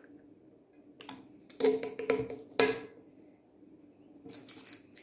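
Sharp hard-plastic clicks and knocks: the plastic globe bulbs of a fairy-light string being handled on a stone tabletop. One click comes about a second in, a loud cluster follows between about one and a half and three seconds in, and fainter taps come near the end.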